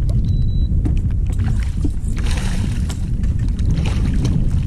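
A hooked fish thrashing and splashing at the water's surface beside a boat, the splashing strongest about two seconds in, over a steady low rumble.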